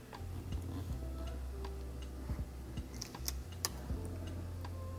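Faint scattered clicks and small crackles of fingers working a thin vinyl overlay onto the plastic trim of a steering wheel, over a low steady hum.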